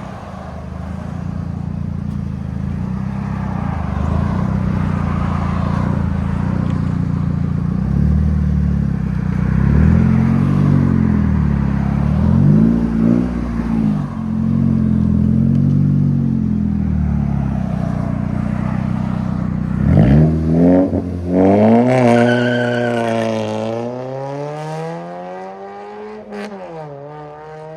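2006 Pontiac Solstice's 2.4L inline-four with its muffler deleted and straight pipes, driving off. A low, steady engine note with slow swells runs through the first part. About two-thirds of the way in, the pitch sweeps up and down sharply through revs and gear changes.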